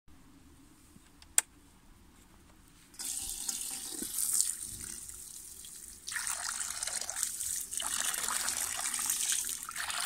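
Water pouring from a canister into a metal frying pan, splashing in the pan; it starts about three seconds in and gets louder from about six seconds. A single sharp click comes about a second and a half in.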